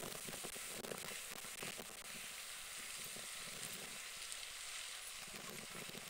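Steady outdoor hiss with light crackling and ticking.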